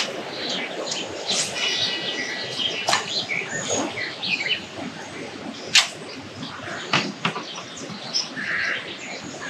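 Several birds chirping and calling, short high notes scattered throughout, over a few sharp clicks, the loudest a little past halfway through.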